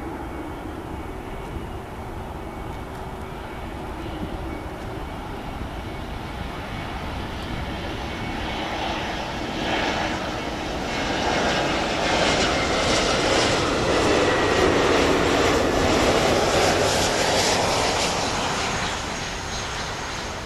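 Airbus A320neo's Pratt & Whitney PW1100G geared turbofan engines on landing approach, growing louder as the jet flies in and passes close by, loudest in the second half and then easing off. A thin whine falls in pitch as the aircraft goes past.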